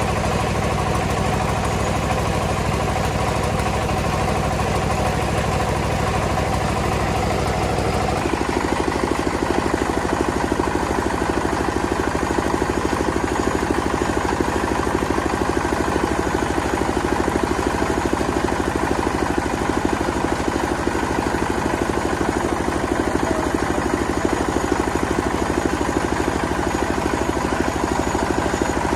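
Rice milling machine running steadily under engine power. About eight seconds in the sound changes: the deep low hum drops away and a rougher, rattling running sound continues.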